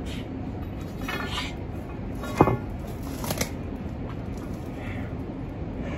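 Feet stepping and scuffing on a concrete landing during shadowboxing footwork, with a few short sharp breaths over a low background rumble; one sharper knock about two and a half seconds in.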